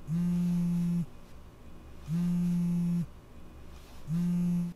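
Smartphone lying on a wooden desk buzzing with an incoming call: three buzzes of about a second each, one every two seconds, the last cut short as the call is picked up.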